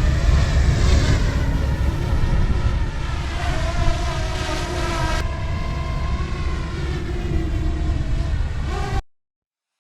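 Wind rumbling on the microphone under the whine of the DJI Mini 2's propellers, several pitches that drift up and down as the motors change speed. It cuts off abruptly about nine seconds in.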